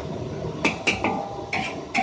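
A metal spatula clanking and scraping in a wok of frying rice, four sharp strikes, one leaving a brief metallic ring, over the steady noise of the burner and sizzling.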